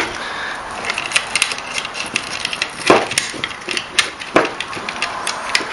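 Handling noise as a power cord and its fitting are fed into an electrical box: many small clicks and rubbing, with two louder knocks about three and four and a half seconds in.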